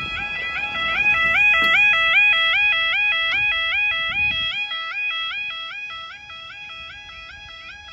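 Level crossing audible alarm sounding: a two-tone warble that steps rapidly and evenly between a lower and a higher note. A low rumble runs underneath for the first few seconds, then drops away.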